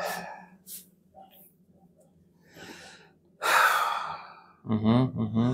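A man breathing hard while his spine is twisted in a side-lying manipulation: a couple of breaths, then a loud sharp exhale about three and a half seconds in, followed by a short grunt in two pulses near the end.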